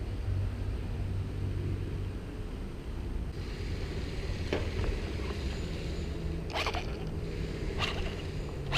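Steady low mechanical rumble with a rough, rasping edge that grows stronger a few seconds in, broken by a few sharp clicks or knocks in the second half.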